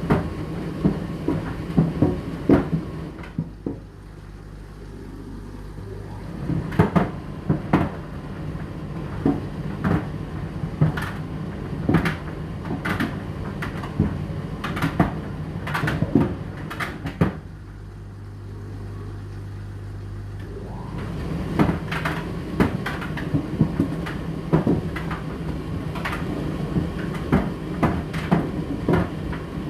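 Indesit IDC8T3 condenser tumble dryer running, its drum turning with the load knocking irregularly against it over a steady motor hum. Twice the knocking stops for a few seconds, leaving a lower, steady hum.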